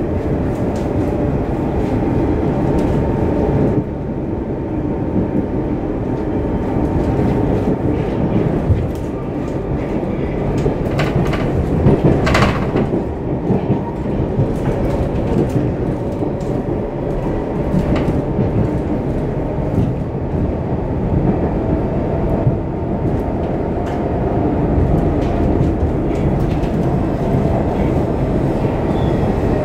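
Interior running noise of a Stockholm Metro C15 train underway: a steady rumble of wheels on rail with a constant hum and scattered clicks. There is a short high-pitched sound about twelve seconds in.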